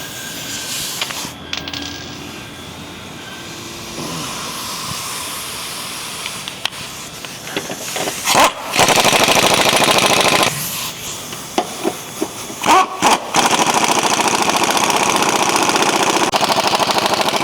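Impact wrench hammering body-mount bolts up snug: a burst of about two seconds just past halfway, then a longer run of several seconds near the end, after quieter handling noise.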